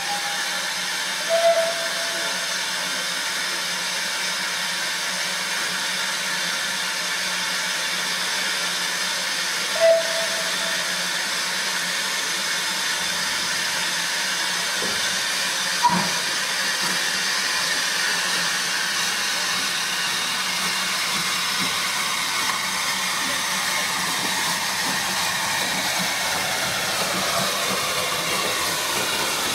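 Steam locomotive hissing steadily as it blows off steam, with two short whistle toots, one about a second and a half in and another about ten seconds in, and a single sharp knock near the middle.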